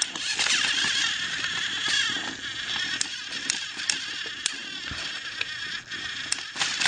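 Battery-powered toy train motors whirring steadily, with scattered sharp plastic clicks and rattles.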